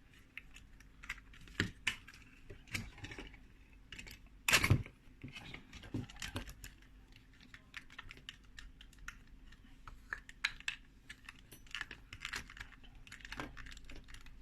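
Small parts of the mat's handle connector being handled and fitted back together: a run of light clicks and taps, with one louder knock about four and a half seconds in.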